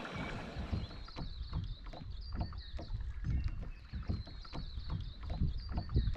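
Water splashing and sloshing in irregular short splashes over a low rumble, with faint high bird chirps.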